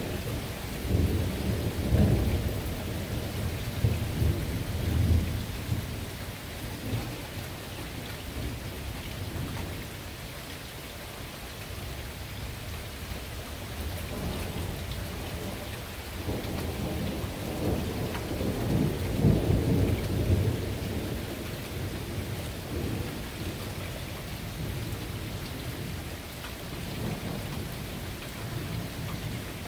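Steady rain falling, with two long rolls of low thunder rumbling through it: one in the first few seconds and another a little past the middle, then a fainter rumble near the end.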